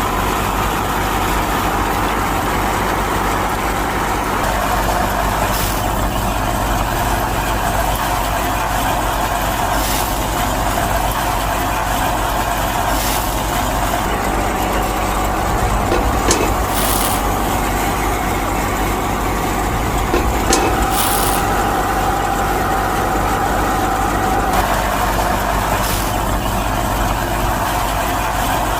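Homemade mini wheat thresher's motor running steadily, with a few short clicks now and then.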